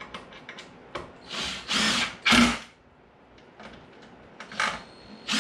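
Cordless drill driving two screws through an Adirondack chair arm into pre-drilled holes, in two short bursts about a second long, the second the louder, after a few light clicks.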